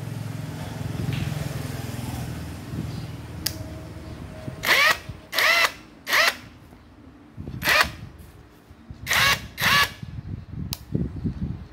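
Hitachi cordless impact wrench motor run unloaded in six short trigger bursts, each spinning up with a rising whine and winding down within about half a second. A sharp click comes before the first burst and another after the last. The tool runs again on its freshly replaced control board, the board having been its only fault.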